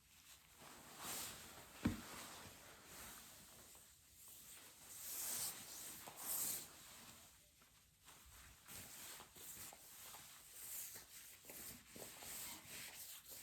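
Faint handling noises of wallpapering work: soft rustles and scrapes, with a single click about two seconds in.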